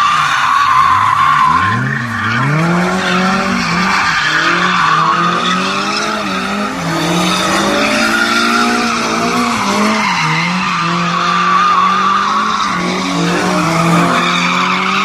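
BMW M5 drifting: the engine revs rise and fall over and over while the rear tyres squeal without a break.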